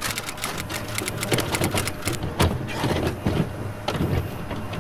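Mechanical clacking sound effect: sharp clicks and heavier knocks at an uneven pace.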